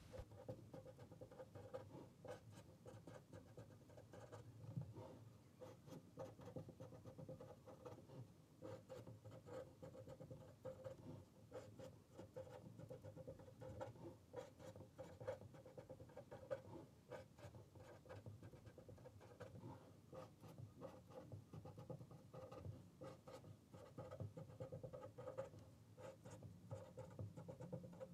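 Faint scratching of a pen on paper: short, irregular strokes as words and numbers are written out one after another.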